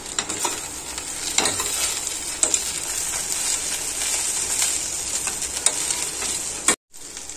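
Brinjal, cashew and peanut fry sizzling in a stainless steel kadai as a spatula stirs it, with scattered clicks and scrapes of the spatula against the pan. The sound cuts out for a moment near the end.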